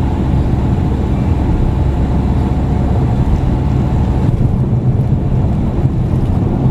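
Car travelling at motorway speed, heard from inside the cabin: a loud, steady rumble of tyre, road and engine noise.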